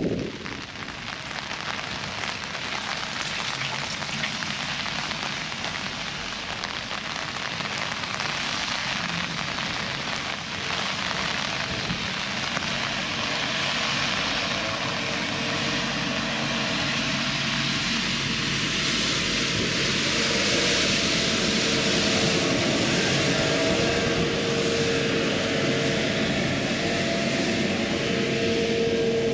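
Rain pattering on an umbrella, with a steady engine drone coming in about halfway through and slowly growing louder.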